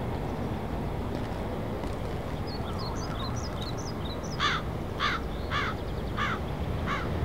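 A crow cawing about five times in quick succession, starting about halfway through, with faint chirps of small birds before it over steady background noise.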